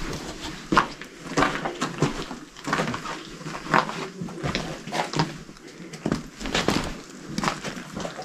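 Footsteps crunching over loose rubble and stones along an old mine-cart track, irregular steps in an enclosed rock tunnel.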